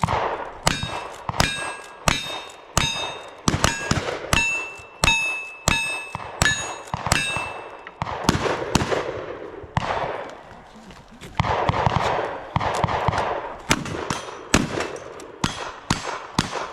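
Cowboy action shooting: a quick string of gunshots, most of them followed by the bright ring of steel targets being hit.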